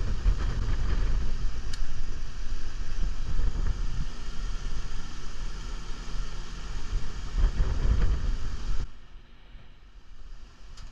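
Running air-conditioning condenser unit with a heavy low wind rumble on the microphone. The sound cuts off abruptly near the end to a much quieter background.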